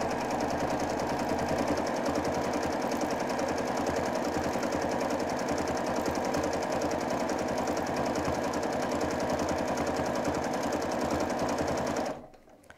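Domestic sewing machine running steadily at speed, free-motion quilting with a fast, even stitching rhythm from the needle. It stops suddenly near the end.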